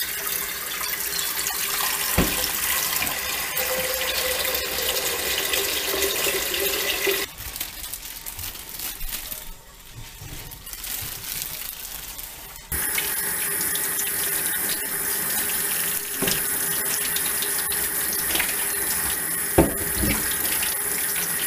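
Kitchen faucet running into a stainless steel sink, first filling a steel pot with water. The water stops about seven seconds in. After about five quieter seconds it starts again and runs steadily over green bananas being rinsed under the stream, with a few light knocks against the sink.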